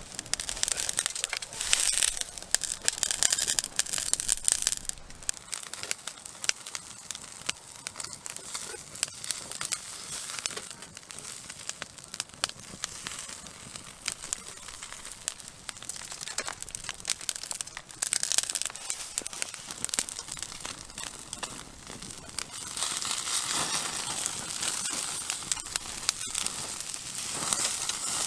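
Wood campfire crackling with a dense run of sharp pops, and mackerel sizzling on the grill over it; the hissing swells a few times, loudest over the last five seconds.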